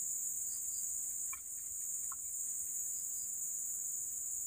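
Steady high-pitched insect chorus, typical of crickets, with a couple of faint short chirps about a second and a half and two seconds in.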